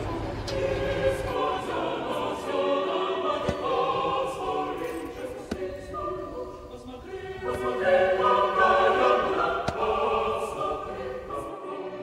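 A choir singing slow, sustained chords as background music. A low rumble sits under the start and stops about a second in.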